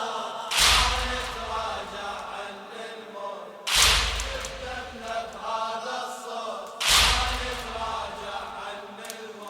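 A crowd of mourners chanting a latmiyya chorus together, punctuated by loud unison chest-beating strikes about every three seconds, three times.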